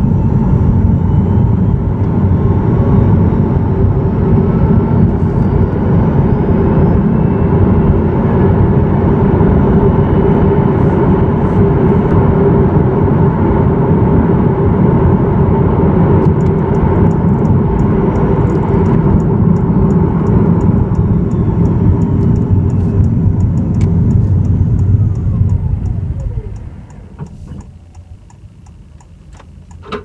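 Honda e electric car driving, heard from beside its rear-mounted electric motor: steady tyre and road rumble with a faint motor whine as it speeds up. Near the end the whine falls in pitch as the car slows to a stop, and the rumble fades away. A regular ticking comes in during the second half.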